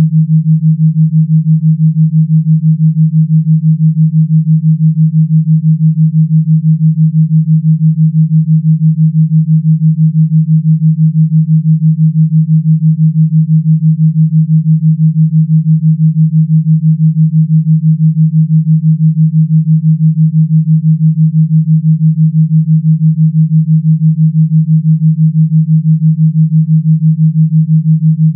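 A synthesized pure tone: one steady low hum-like pitch with a fast, even pulsing, made as a gamma-wave brainwave-entrainment tone.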